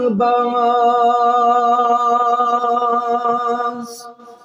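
A man singing unaccompanied into a microphone, holding one long steady note for about three and a half seconds. The line ends in a short hissing consonant near the end, and the note then dies away with a brief echo.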